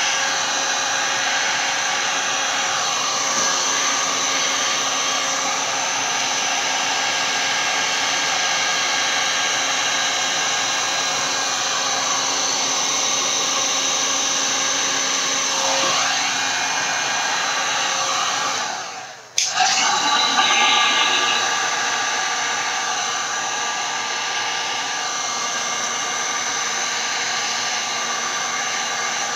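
Handheld electric heat gun running, a steady loud blowing whir as it is played over wet resin/paint pours. About two-thirds of the way through it drops away and cuts out for a moment, then comes straight back on.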